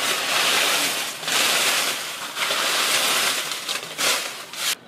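Mutton curry sizzling in a steel pan: a loud, even hiss that comes in several swells and cuts off suddenly near the end.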